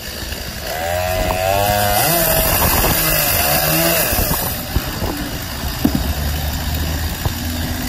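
Gas-powered chainsaw running and cutting into a log, its engine pitch wavering as the chain bites into the wood. Near the middle a cut-off block of wood falls away, with a few sharp knocks.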